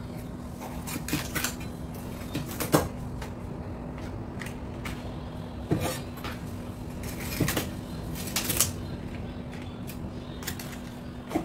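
A kitchen knife cutting cabbage leaves on a wooden end-grain cutting board: scattered, irregular knocks of the blade striking the board, over a steady low hum.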